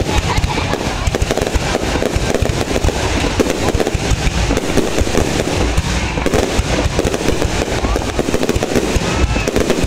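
Fireworks display in a dense, continuous barrage, many bangs and crackles every second without a break.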